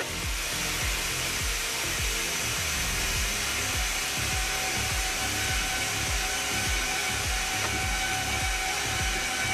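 Diesel locomotive running, heard from inside the cab: a steady mechanical rush with a low pulse beating about three to four times a second and a few steady whining tones.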